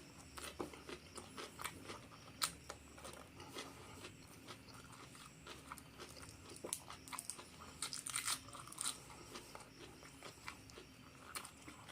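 Close-miked eating: irregular crunches and crackles of biting into and chewing crispy fried duck with rice, loudest in a cluster about eight seconds in.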